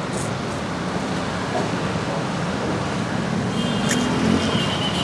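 Steady road traffic noise, a continuous low rumble of passing vehicles. A faint high tone joins it about three and a half seconds in.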